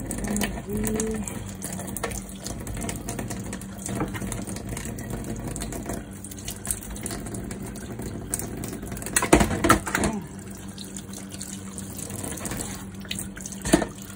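Kitchen tap water running steadily into a stainless steel sink as crabs are rinsed under it, with a few sharp clicks and knocks from the shells and kitchen scissors, loudest about nine and a half seconds in and again near the end.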